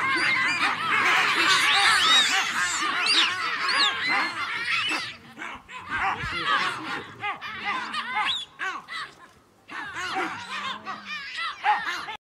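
A troop of baboons calling in a dense chorus of overlapping barks and screams, thinning after about five seconds to scattered single calls with short pauses between them.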